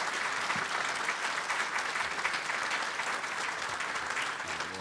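A large audience applauding steadily, the clapping beginning to ease off near the end.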